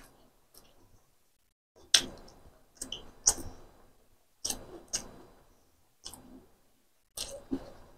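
A person chewing a mouthful of food close to the microphone: about eight sharp, irregular mouth clicks, starting about two seconds in.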